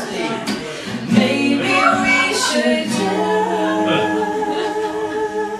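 Acoustic pop song performed live by a female and male duo: the two voices sing in harmony with long held notes over acoustic guitar.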